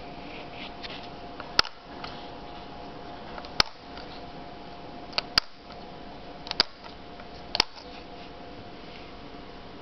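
Front-panel push-button switches on a Watkins-Johnson WJ-8716 communications receiver being pressed: five sharp clicks spaced about a second or two apart, some doubled. Under them runs a steady hiss with a faint steady tone, which dips briefly after each click.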